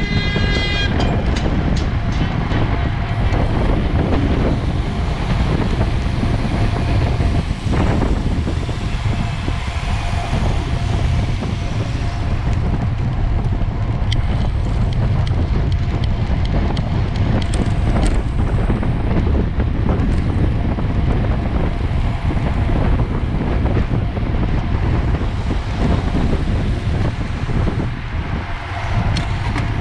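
Steady, heavy wind buffeting on the microphone, with a low rumble underneath. A brief high-pitched tone sounds in the first second.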